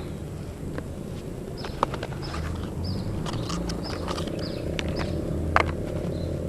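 Short, high, downward chirps of small birds scattered over a steady low hum, with two sharp clicks, one about two seconds in and one near the end.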